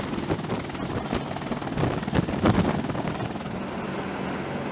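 AH-64 Apache attack helicopter hovering low, its twin turboshaft engines and rotors running steadily. The sound changes slightly about three and a half seconds in, losing some of its high end.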